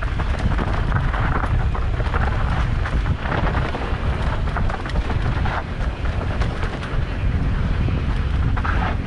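Wind buffeting the microphone with a heavy low rumble, mixed with frequent small clicks and rattles from a mountain bike running down a rough dirt trail.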